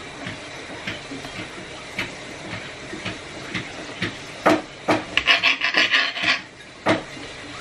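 Kitchen knife cutting through a peeled vegetable on a cutting board: light chops about every half second, turning into louder knocks and scraping of the blade on the board about four and a half seconds in.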